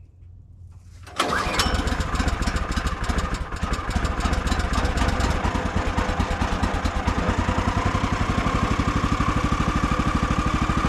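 Gasoline engine of a Woodland Mills HM130 Max portable sawmill, recoil pull-started because the battery is dead, catching about a second in and then running steadily.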